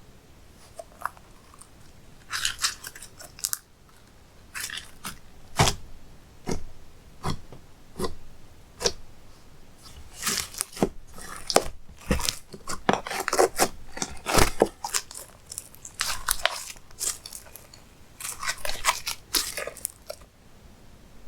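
Slime being kneaded, stretched and pressed by hand: irregular clusters of sticky crackles and sharp pops.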